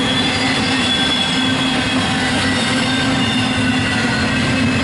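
Double-stack intermodal freight train's well cars rolling past on the rails: a steady loud rumble of wheels and cars, with faint high-pitched whining tones from the wheels drifting slightly above it.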